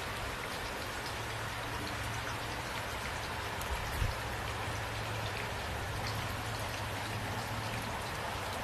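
Steady rain falling, with scattered individual drops ticking over the even rush, and a steady low hum underneath. A brief low thump about four seconds in.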